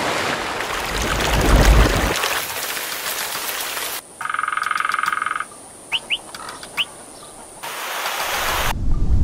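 A spliced nature soundscape: rushing water, then about four seconds in a frog's rapid pulsed croak lasting about a second and a half, two short bird chirps, and the rushing water again near the end. The changes between sounds are abrupt, like edited cuts.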